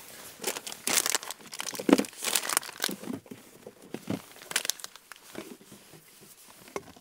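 Plastic food packaging crinkling and rustling as items are handled and lifted out of a portable fridge. The rustles come irregularly for the first four to five seconds, then grow faint.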